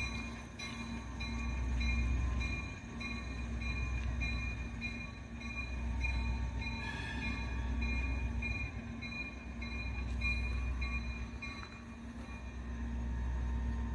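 Diesel locomotive running as it moves slowly along the track, its engine a steady low rumble. Its bell rings in an even rhythm, a little under twice a second, and stops near the end.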